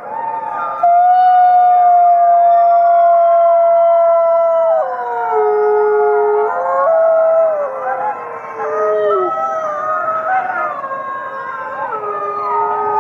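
Many wolves howling in chorus, long overlapping howls at different pitches, led by a close gray wolf. The close wolf's howl comes in loudly about a second in, holds one steady pitch for about four seconds, then drops lower and climbs again while the other voices weave around it.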